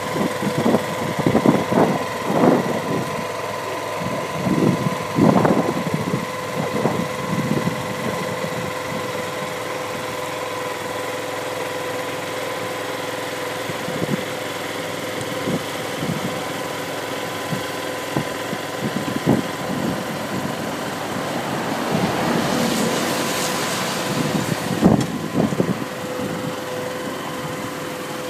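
Engine of a tracked bulb-planting machine running steadily with a constant hum, while the planting attachment knocks and thumps irregularly as it works through the turf, most often in the first several seconds. A few seconds before the end there is a stretch of hissing noise and a sharp knock.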